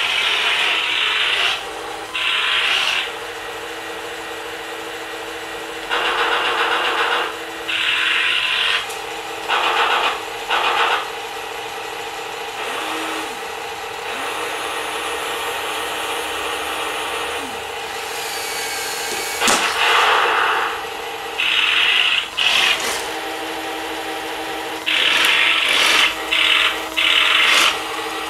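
Radio-controlled Tiger I model tank driving: its electric track motors and gearboxes whir in repeated bursts as it moves and stops, over a steady simulated engine rumble from its built-in speaker. A few sharp clicks cut in near the middle and end.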